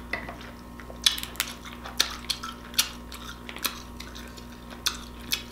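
Close-up eating sounds of king crab legs: shell cracking and crackling as the meat is pulled out, mixed with chewing, heard as an irregular string of sharp clicks and crackles.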